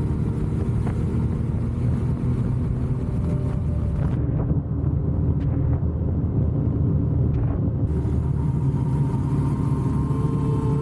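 Kawasaki W650's air-cooled parallel-twin engine running steadily while the motorcycle is ridden at cruising speed.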